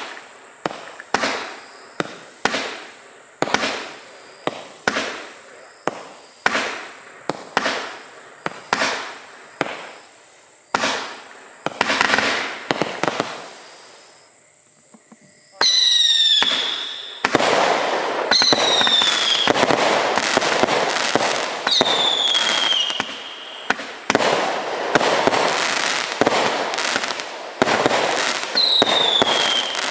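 Firework barrage cakes firing: about eleven seconds of single shots at roughly one and a half a second, each ending in a fading crackle. After a brief lull, a denser, louder volley follows, with several shots giving falling whistles.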